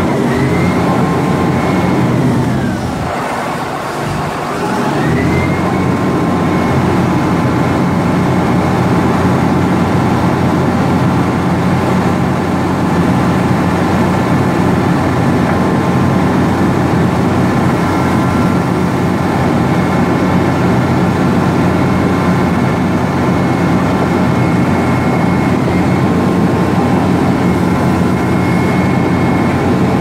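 Diesel engine and whining drive of a Vögele Super 1800-2 crawler asphalt paver running steadily at high revs. A few seconds in, the pitch and level sag briefly, then climb back to the same steady note.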